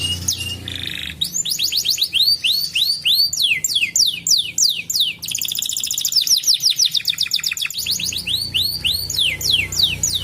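Domestic canary singing: runs of fast, repeated down-slurred whistled notes, breaking in the middle into a very rapid trill for about three seconds before the slurred notes return.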